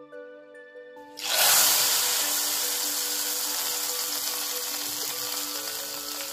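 Hot tadka of oil, cumin seeds, dried red chillies and curry leaves poured into a pot of buttermilk kadhi. A sudden loud sizzle starts about a second in and slowly fades, over background music.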